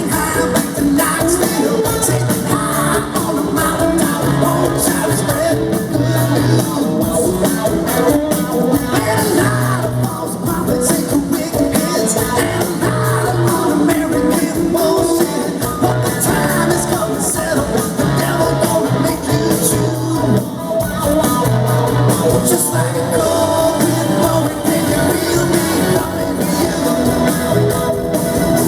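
Live rock band playing loud and continuously, with a lead singer and electric guitar.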